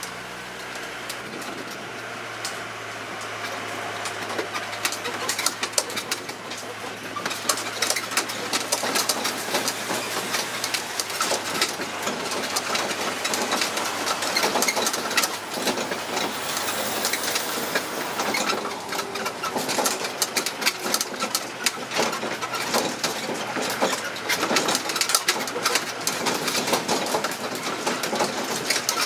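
Open carriages of a tourist road train rattling and clattering on the move, with road and traffic noise. A steady low engine hum underneath drops away about eleven seconds in.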